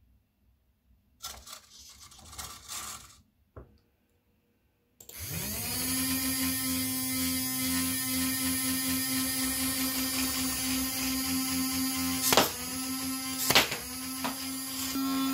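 Small servos whirring briefly as the Nerf turret moves, then the turret's twin flywheel motors spin up with a rising whine and settle into a steady high hum. Twice near the end a foam dart is pushed through the flywheels: a sharp shot, each with a brief dip in the motor's tone as the dart takes its energy.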